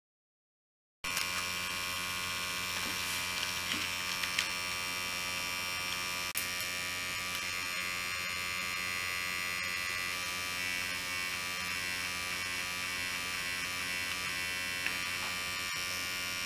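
Pipet-Aid's small electric pump running with a steady buzz, starting about a second in, its tone shifting slightly after about ten seconds. A single click about six seconds in.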